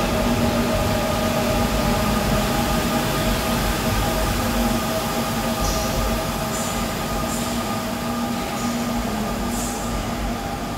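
A Seoul Subway Line 4 electric train runs through the station without stopping: a steady drive whine and hum over wheel-on-rail rumble. The sound fades in the second half as the train clears the platform, with a few brief high squeals.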